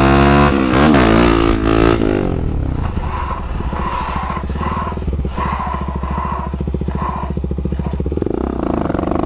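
Honda motorcycle's single-cylinder engine revving up and down as the bike is pulled into a high wheelie, then held at steady revs with a rapid pulsing exhaust for several seconds while the bike stands on its tail. Short scraping sounds come and go through the middle, typical of the rear tail dragging on the asphalt. The engine picks up again near the end as the front comes back down.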